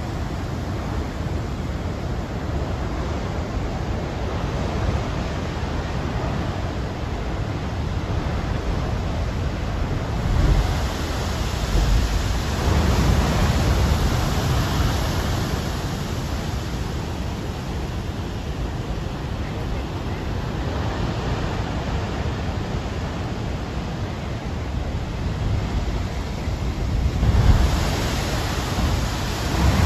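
Heavy storm surf on the Pacific crashing against rocky cliffs: a continuous rushing noise of breaking waves, swelling with a deep rumble as big waves strike the rocks about ten seconds in, again a little later, and near the end.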